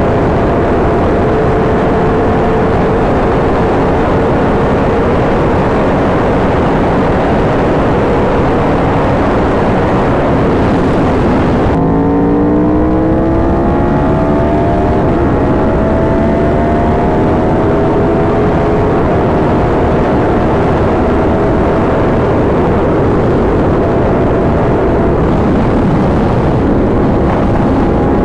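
Motorcycle ridden at speed, heard from the rider with heavy wind noise over the engine: a 2019 Yamaha R1 crossplane inline-four with an SC Project exhaust. About twelve seconds in the wind hiss drops and the engine pitch climbs as it accelerates.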